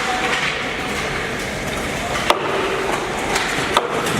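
Ice-rink sound of a sledge hockey game in play: a steady wash of rink noise with sharp knocks of sticks and puck, the loudest a little over two seconds in and another near the end.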